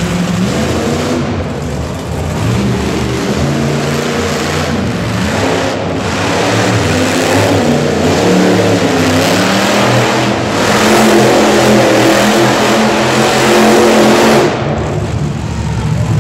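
Monster truck's supercharged V8 revving hard as the truck spins on the dirt, its pitch climbing and falling over and over. It is loudest in the second half and eases off sharply about a second and a half before the end.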